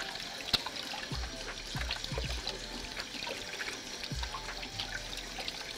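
Kitchen tap running and water splashing in the sink as hands are washed under it, with a few small knocks and clicks.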